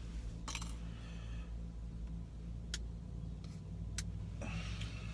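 A few sharp little metallic clicks and taps from tiny phone screws and a small screwdriver being handled, with a short rustle near the end, over a steady low hum inside a car.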